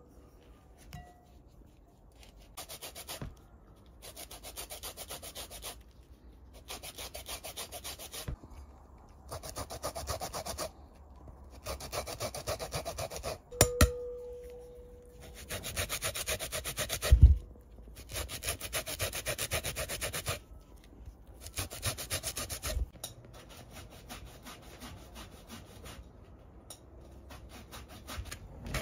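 Orange peel being zested on a fine stainless-steel rasp grater: repeated runs of quick scraping strokes, each lasting a second or two, with short pauses between. A single ringing clink sounds about halfway through, and a dull knock follows a few seconds later.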